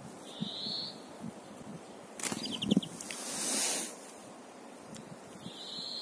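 Small songbirds giving short high calls, with a quick run of about five clicking notes a little over two seconds in, over rustling and handling thumps and a swell of hiss in the middle.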